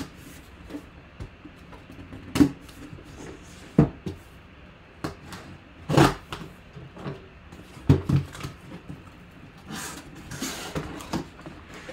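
Cardboard shipping box being handled and opened: scattered knocks and short scrapes as it is set down and turned on the table, then a longer rustle of cardboard flaps being pulled open near the end.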